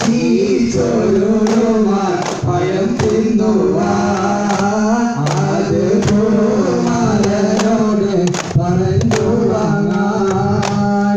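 Duff muttu: a man singing a devotional song over daf frame drums struck by hand in a steady rhythm of sharp beats.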